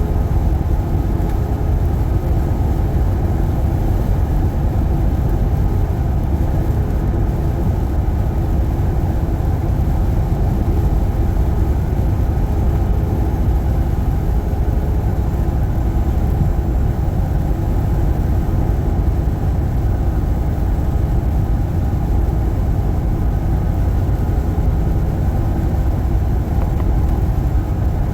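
Steady low engine and road drone inside a moving truck's cab, unchanging throughout.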